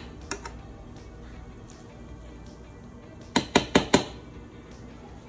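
Metal spoon clinking against a bowl while scooping through cooked rice: two sharp clinks about half a second in, then four quick ones a little past three seconds in. Quiet background music plays underneath.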